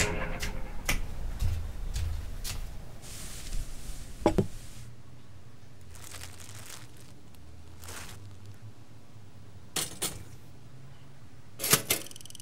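Scattered small clicks and knocks of kitchen objects being handled on a countertop, with a louder clunk about four seconds in. Near the end comes a sharp double click as a pop-up toaster's lever is pushed down.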